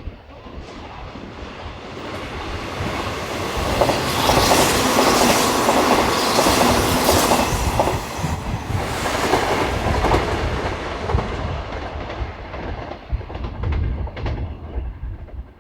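Hanshin electric train going past, its wheels clicking over the rail joints. It grows louder over the first few seconds, is loudest in the middle, and fades away near the end.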